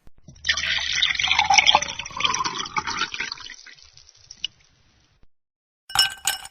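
Water pouring for about two and a half seconds, then thinning out into trickles and drips. A short, sharp noise follows near the end.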